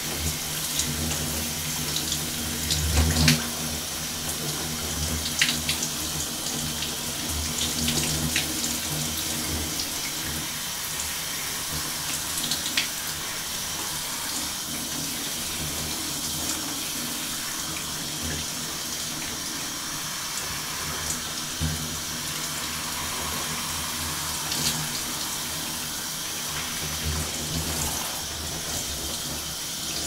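Shower spray falling into a fiberglass tub: a steady hiss of running water with a low rumble that swells and fades, heaviest in the first few seconds, and a few sharp crackles.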